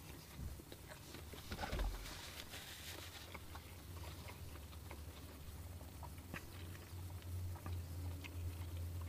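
A man chewing a mouthful of chicken, lettuce and tomato tortilla wrap, with soft, irregular mouth clicks and crunches. The chewing is busiest about two seconds in. A low steady hum runs underneath.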